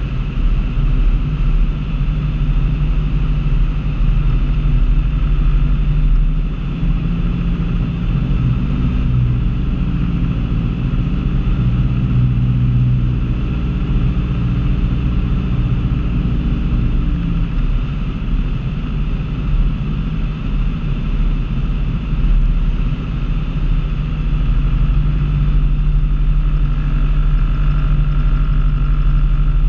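Light aircraft's piston engine and propeller droning steadily, heard inside the cockpit, with the low tone shifting slightly for several seconds in the middle.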